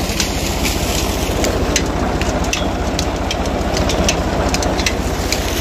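Ford tractor engine running steadily under load, driving a tubewell pump through a long flat belt and pulley, with many scattered sharp clicks over the engine's steady low beat.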